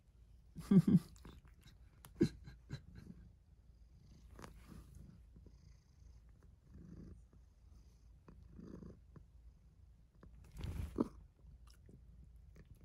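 Tabby cat licking and rubbing against a man's hair right at the microphone: soft brushing and rustling of fur on hair. Louder brushing clusters come about a second in and near the end, with a few small clicks between.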